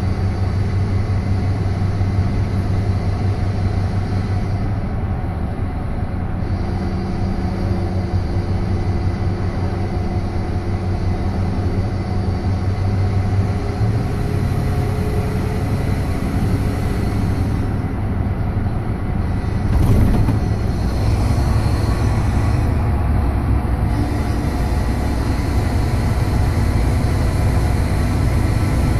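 2011 Ford F-250 pickup driving, heard from inside the cab with the rear window open: steady engine and road noise with a faint whistling tone that comes in partway through and fades. It is the odd grinding or whistling noise that comes on with throttle, which the owner suspects may be a heat shield or a bearing. A brief thump about twenty seconds in.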